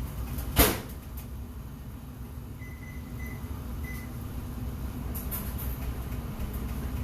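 A microwave oven's door shuts with a sharp click, then its keypad gives three short high beeps, over a steady low hum.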